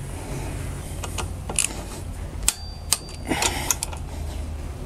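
VANPO quarter-inch-drive torque wrench ratcheting and clicking as bolts on the front wheel are tightened to 22.5: a series of separate sharp metallic clicks, one of them with a brief ring.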